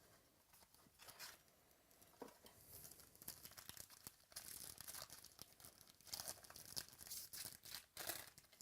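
Packaging of a sports-card mini box being torn open and crinkled, in faint irregular scratchy rustles that get busier from about three seconds in.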